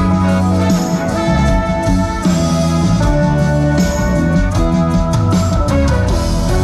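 Live band playing an instrumental passage with guitar and drums during a sound check.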